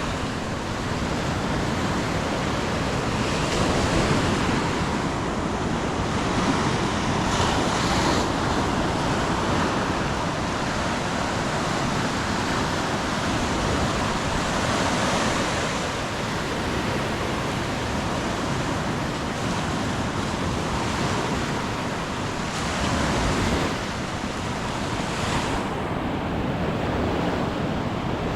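Ocean surf washing onto a beach: a continuous roar of breaking waves that swells louder every few seconds, with wind rumbling on the microphone.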